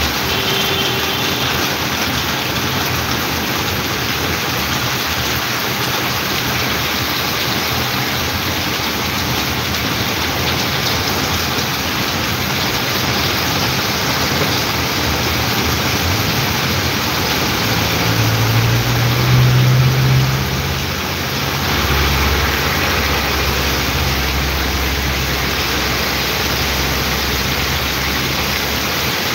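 Heavy rain pouring down onto pavement in a steady hiss. About eighteen seconds in, a low rumble swells for a few seconds and fades, and a softer low drone follows.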